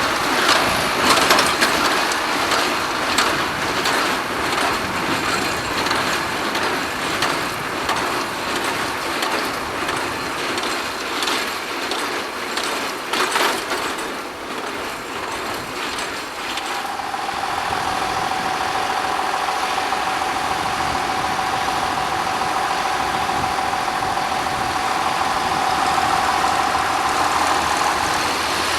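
Ford 7700 tractor running while pulling a Claas conventional square baler at work, with repeated knocks and clatter from the baler through the first half. About halfway through, the knocking gives way to a steady engine note.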